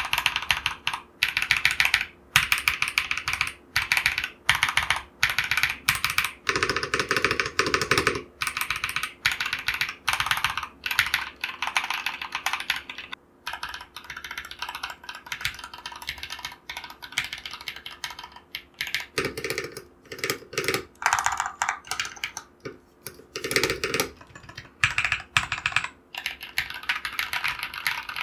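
Akko Vintage White light linear mechanical keyboard switches being typed on in quick bursts of keystrokes with short pauses between them, as a typing sound test.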